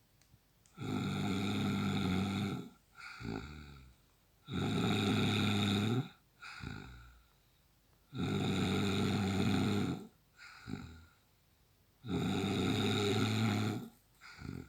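A man snoring heavily: four loud, rasping snores about four seconds apart, each lasting a second and a half to two seconds, with softer breaths between them.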